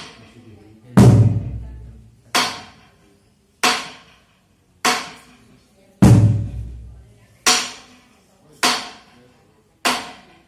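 Slow percussion beat for a traditional dance: a sharp strike that rings out briefly about every 1.25 seconds, with a deep drum beat landing together with every fourth strike.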